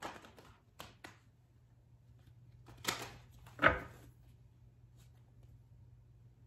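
Deck of tarot cards being shuffled by hand: a few light card clicks in the first second, a short rustling riffle near three seconds, then a sharp knock with a low thud just before four seconds, the loudest sound. A faint steady low hum lies underneath.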